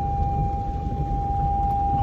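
Low rumble inside a Land Rover Discovery's cabin as it drives through floodwater in the rain, with a steady high-pitched tone held over it.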